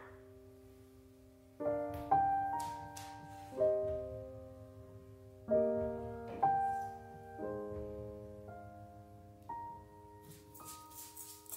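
Soft solo piano background music: slow chords and melody notes struck about once a second, each left to ring and fade.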